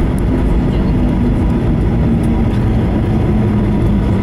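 Boeing 737-800's CFM56-7B jet engines and rolling airframe heard from inside the cabin beside the wing, running loud and steady as the airliner moves along the runway after landing, with a low hum that drifts slightly in pitch.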